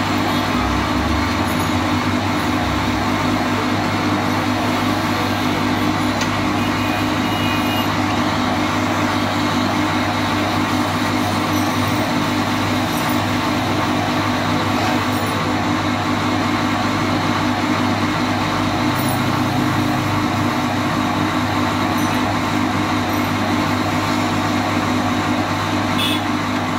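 Wood lathe running with a steady, unbroken hum while a hand-held turning tool cuts the spinning wooden spindle.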